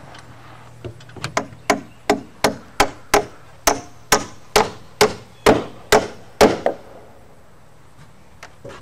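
Claw hammer driving a nail into wooden roof framing. A few light taps set the nail, then comes a run of about a dozen heavier blows, roughly two a second.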